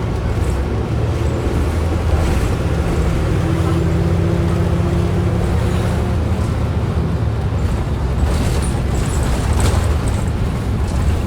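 Inside a 2010 Orion VII NG transit bus under way: the steady low drone of the drivetrain and road noise, with a brief whine a few seconds in. A few short sharp clicks near the start and near the end belong to the rattle this bus is known for.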